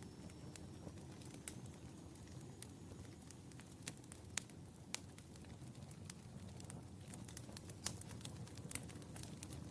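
Wood fire burning in a fireplace: a steady low rumble of flames with frequent sharp crackles and pops, a few of them louder.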